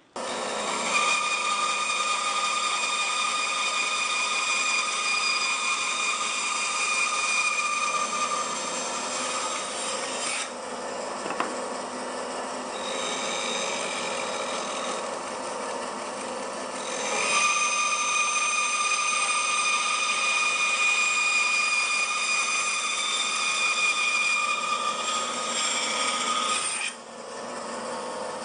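Bandsaw running and cutting into wood, its blade ripping along the mortise cheeks of a bridle joint, with a steady whine over the cutting noise. The sound eases for a few seconds partway through, then returns, and near the end the cut finishes and the saw runs on unloaded.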